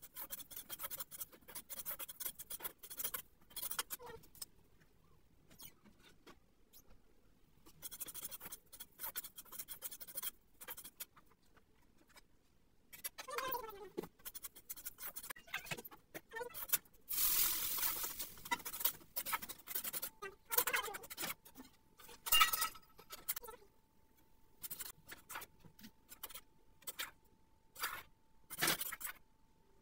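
A metal spatula scraping and knocking against a steel kadai as food is stirred on a gas stove, with irregular scrapes and taps. About seventeen seconds in comes a louder hiss lasting about two seconds, and a faint steady tone is heard in the second half.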